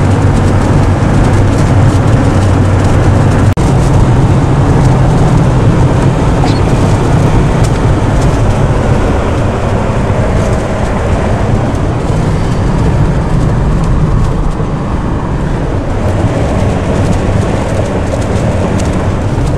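A car being driven, with its engine and tyres making a steady road noise that is strongest in the low range.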